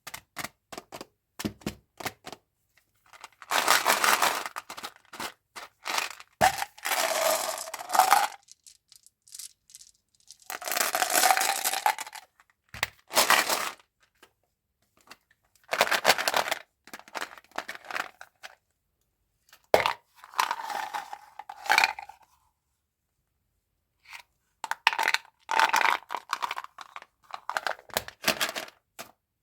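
Mentos packaging being handled and opened: several spells of paper and plastic wrapper tearing and crinkling, with sharp clicks and taps in between.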